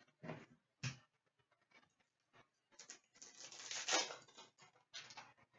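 Trading cards being handled and shuffled: two short flicks of card stock in the first second, then a longer papery rustle from about three seconds in that lasts over a second, and a short rustle near the end.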